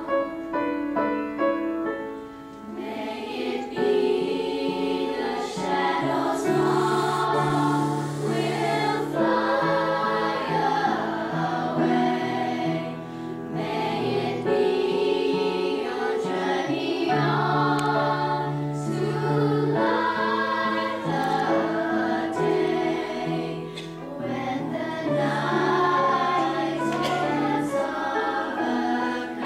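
Children's choir singing a song in unison, with piano accompaniment.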